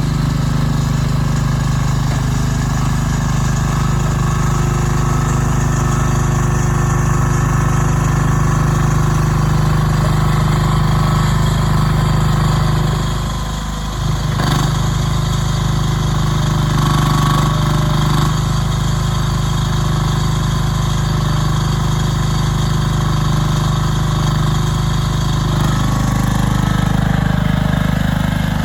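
Engine of a 2020 Rhinoceros XN08 mini excavator running steadily, with a brief drop in level about halfway through before it picks back up.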